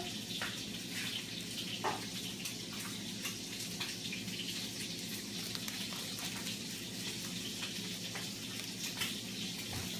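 Plastic snack bag crinkling in small hands, with scattered light ticks of goldfish crackers being picked off a tile floor and dropped in, over a steady low hum.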